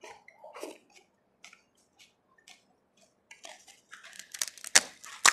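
Close-miked eating: a short sip from a spoon, then a crisp pani puri shell crunched and chewed, with dense crackling building about three seconds in and the sharpest cracks near the end.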